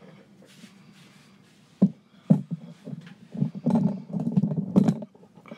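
Handling noise from the recording phone being carried and moved: a few sharp knocks and clicks with irregular low rumbling bumps.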